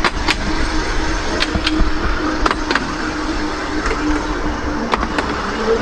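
Narrow-gauge electric tram running along its rails, heard from on board: a steady rumble and hum with sharp clicks in pairs about once a second, as the wheels cross rail joints.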